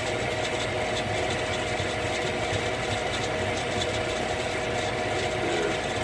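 Lennox gas furnace running with its burners lit: a steady hum and rush with a faint, constant whine, unchanging throughout.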